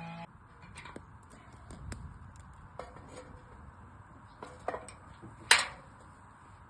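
Music cuts off just after the start, then scattered light clicks and knocks over a faint background, with one sharper, louder clank about five and a half seconds in.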